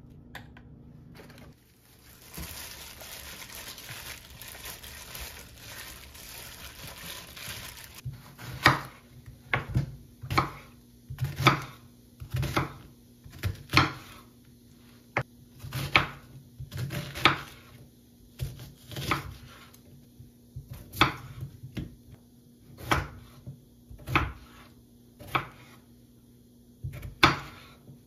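Kitchen knife cutting through an onion onto a wooden cutting board, single sharp chops about one a second. Before the chopping starts, a soft hiss for several seconds.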